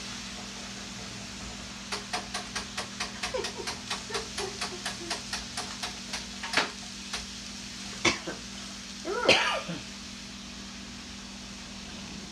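A quick run of light taps, about five a second, then a few louder knocks and a scrape. This is a wooden spoon knocking against a plastic container and a stainless steel skillet as raw kale is pushed into the pan. A steady low hum lies under it.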